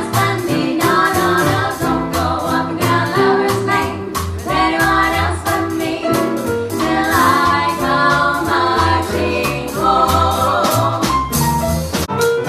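A vocal group singing together in harmony over instrumental backing with a bass line and a steady beat.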